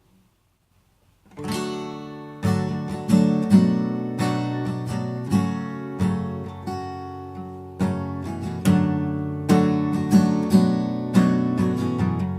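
Acoustic guitar playing an intro, strummed and plucked chords that ring out, starting about a second in.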